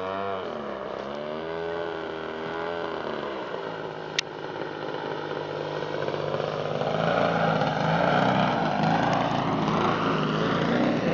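PTE 36cc two-stroke gas engine and propeller of a 70-inch 3DHS Slick RC aerobatic plane in flight, its pitch rising and falling as the throttle and the plane's passes change. It grows louder from about six seconds in as the plane comes low. One sharp click about four seconds in.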